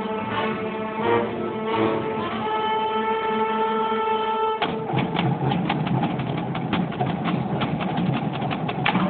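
Marching band holding a sustained chord. About halfway through the chord cuts off abruptly and the drumline takes over with rapid, sharp drum strokes.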